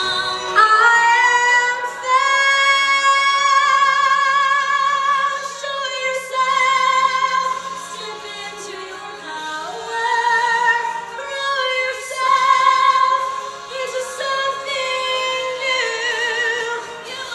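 A woman singing long, high held notes with wide vibrato, in an operatic style.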